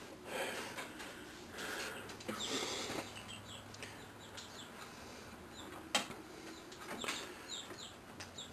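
Faint chirps from small birds in the background, short high calls that fall quickly in pitch and come in loose clusters, with a single sharp click of handling about six seconds in.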